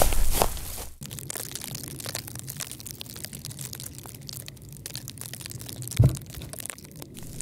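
Shovel digging into leaf-littered forest soil, crunching and cracking, then loose earth shovelled into a hole, with light crackling and a dull thud about six seconds in as a load of dirt lands.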